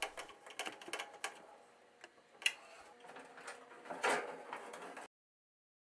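Scattered light clicks and taps of a screwdriver and sheet-metal parts being handled while an electric stove is put back together. There is a sharper click about two and a half seconds in and a longer metallic clatter around four seconds, when the back panel is handled.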